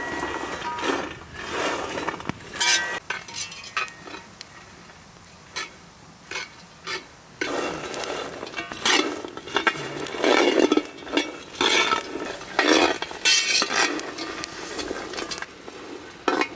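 Metal spatula scraping and stirring walnut pieces in a wide dry metal pan over a wood fire, the nuts clattering against the pan in irregular strokes. There is a quieter lull in the middle, then the stirring picks up again.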